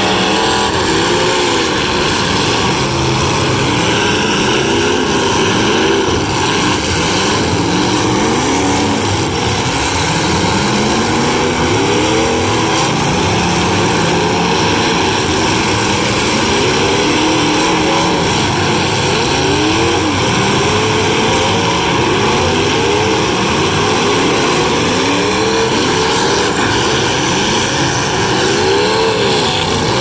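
Several demolition derby cars' engines revving hard at once, each pitch repeatedly rising and falling and overlapping the others as the cars ram and push against each other.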